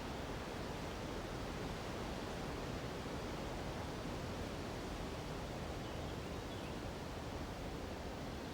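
Steady rush of a nearby mountain river blended with wind through the treetops, an even, unbroken hiss without distinct events.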